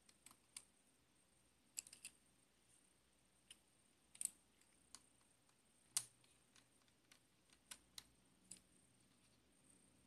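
Precision screwdriver undoing tiny screws on a MacBook Pro's optical drive: a scattering of faint, irregular metal clicks and ticks, the sharpest about four and six seconds in.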